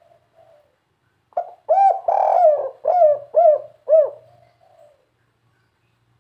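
Spotted dove cooing: a phrase of arched, rising-and-falling coos starting about a second in, with a longer drawn-out note in the middle and ending in three short, evenly spaced coos (the 'kuk 3' song type prized by dove keepers).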